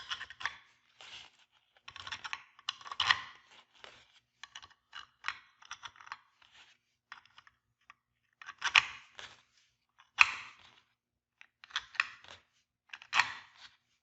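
1/4-20 metal bolts being set into the holes of a laser-cut wooden puzzle board as playing pegs. Irregular light clicks and rattles of metal on wood, with a few louder clatters.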